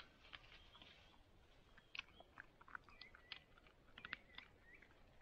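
Faint, irregular crunching and chewing from a young West Siberian laika eating a treat from its handler's hand.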